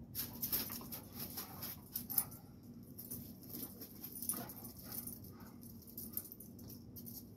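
Two young dogs tussling, one whimpering in short high cries among quick sharp clicks and scuffles.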